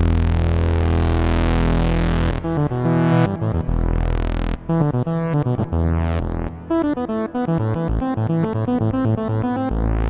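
Moog One 16-voice analog polyphonic synthesizer playing a preset. A held low chord sweeps in tone while a panel knob is turned, then about two and a half seconds in it gives way to a fast run of rapidly changing notes and chords played on the keys.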